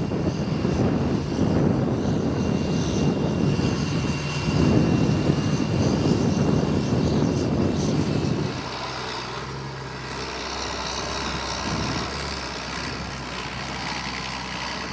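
A John Deere 8000-series six-cylinder diesel tractor working hard, pulling a disc harrow through the soil with a loud, dense engine drone. About halfway through the sound switches abruptly to a quieter, steadier engine note from a John Deere 7710 tractor towing a slurry tanker.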